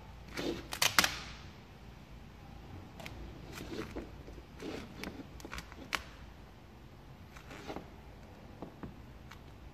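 Gloss black vinyl wrap film crackling and snapping as a plastic squeegee presses and sweeps it into a grille recess, with the sharpest snaps about a second in, then scattered lighter ticks and soft scrapes.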